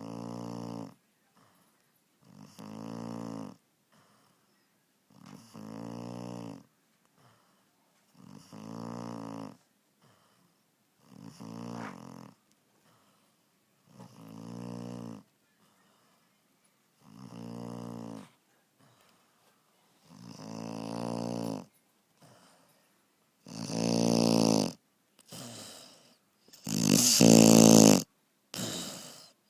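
Labrador puppy snoring in its sleep: a snore about every three seconds, each lasting about a second. The snores grow much louder in the last few seconds.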